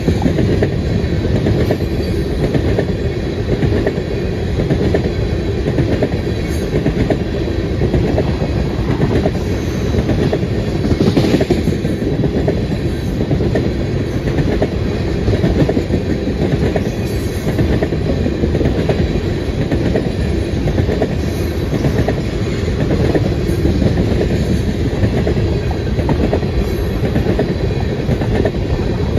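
A freight train of tank cars rolling past, its steel wheels running steadily over the rails with a continuous low rumble.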